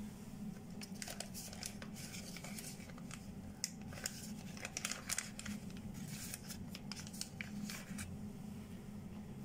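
Paper-wrapped hotel toiletry packets rustling and crinkling as a hand sorts through them in a clear plastic amenity tray. A run of short rustles stops about eight seconds in.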